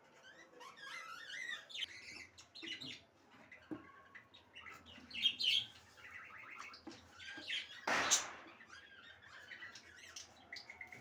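Budgerigars chattering and warbling in a run of quick chirps and squawks, with one short, loud noisy burst about eight seconds in.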